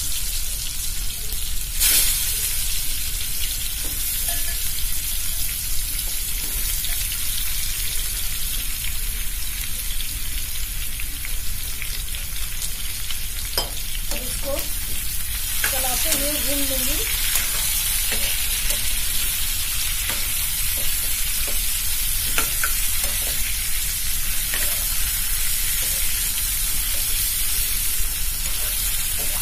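Raw mango pieces sizzling steadily in hot ghee in a kadhai, with a steel spoon stirring them and knocking against the pan now and then.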